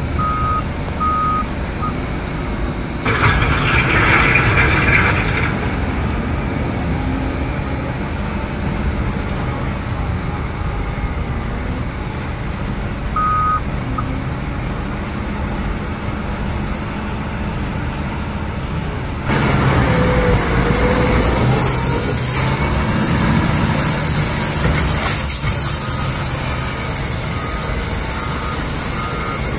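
Develon DL420 wheel loader's diesel engine running, with its reversing alarm beeping in a repeated tone at the start, once briefly around thirteen seconds in, and again near the end. Around three seconds in there is a short rush of gravel spilling from the tipped bucket, and from about nineteen seconds the machine sounds louder and hissier close up.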